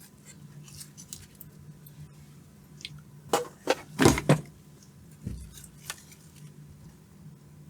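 Small metal tools and parts clicking and clinking as they are handled on a workbench, with a cluster of sharp taps about halfway through, over a steady low hum.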